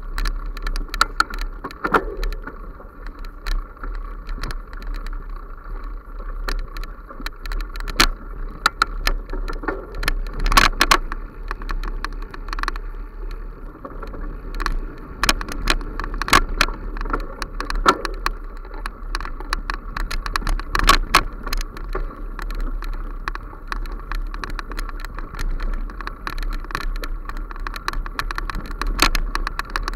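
Bicycle riding over a rough forest dirt trail, with a low rumble and the frame and mounted camera rattling and clicking as it jolts over bumps, heavier knocks on a few larger bumps.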